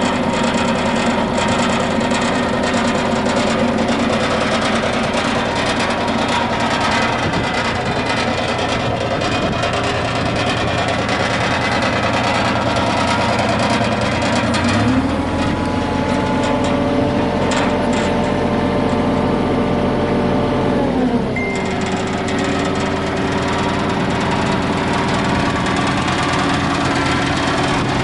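Yanmar VIO20-1 mini excavator's diesel engine running steadily while the machine works. About halfway through a deeper, heavier note joins for several seconds, then the engine tones slide down in pitch and settle again.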